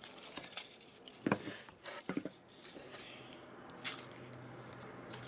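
Quiet handling noises: small clicks and light rustles as hands work a plastic Kinder Surprise toy capsule, with one sharper click near the end.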